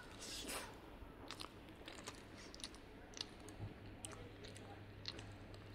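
Close-miked chewing of a soft, creamy bite of strawberry mille-feuille cake, with many small wet mouth clicks; a short rustle near the start.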